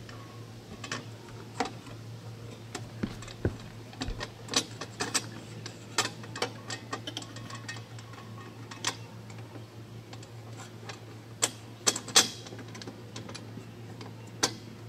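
Irregular metal clicks and taps as an antenna head's metal mounting bracket is seated on a square metal mast and its pins are pushed through the holes, over a steady low hum.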